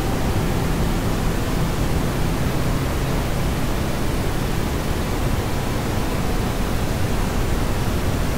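Steady, unbroken rushing noise, like hiss or static, with a low rumble beneath it, played back from a noise track in a multitrack audio mix.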